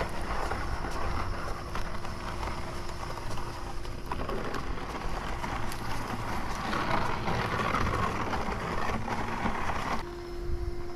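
Steady hissing rush of a hose-fed spray wand spraying liquid along the edge of a marble paver pool deck.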